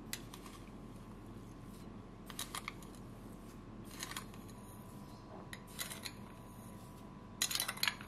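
A metal spoon clinking and scraping against a drinking glass as granulated sugar is scooped out and tipped into a glass mixing bowl, in about five short bursts, the loudest near the end.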